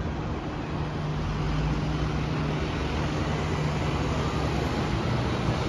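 Road traffic: a bus engine running with a steady low hum over an even background hiss.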